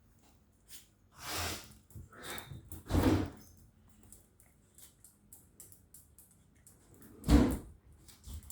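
Two dogs playing: a few short thumps and scuffles, the loudest about three seconds in and again past seven seconds, with light ticks in between.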